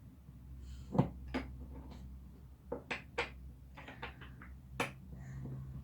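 Irregular sharp clicks and knocks of hard chair parts and hardware being handled and fitted during chair assembly, including a quick run of small clicks midway and one louder knock near the end.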